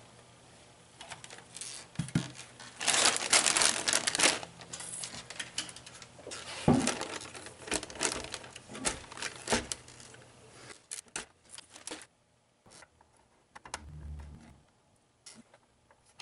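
Crinkling of a plastic anti-static bag as a computer motherboard lying on it is handled, with scattered clicks and knocks. The longest, loudest crinkling comes about three seconds in, and things go mostly quiet in the last few seconds.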